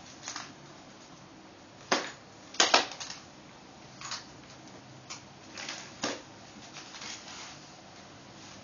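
A small hard object clicking and clattering across a ceramic tile floor as a cat bats and chases it, in irregular taps with a quick loud cluster about two and a half seconds in and lighter taps after.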